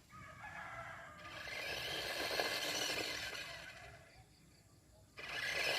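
A rooster crowing, one long call that swells and fades over about three seconds.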